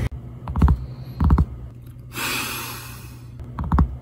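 Handling noise from the recording phone: two pairs of sharp, heavy knocks as a hand grabs and moves it, with a short rushing hiss between them.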